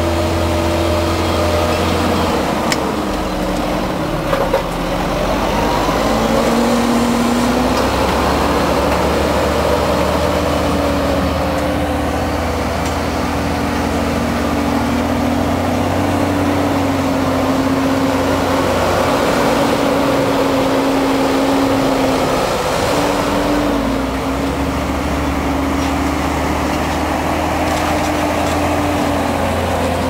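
Fendt 724 Vario tractor's six-cylinder diesel engine running under ploughing load, a steady engine note whose pitch drifts slightly up and down as it pulls a reversible plough.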